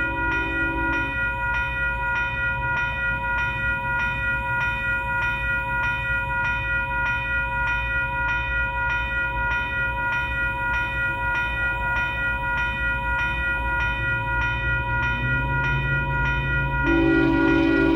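Grade-crossing bell ringing steadily about twice a second over the low rumble of an approaching freight train. The lead locomotive's Nathan K5HL air horn, a warbling chord, trails off about a second in and blows again, louder, near the end.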